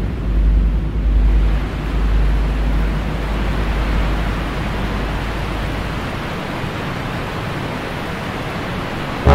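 Steady rushing noise, like wind or surging water, with a deep rumble underneath that dies away about six seconds in while the hiss grows brighter.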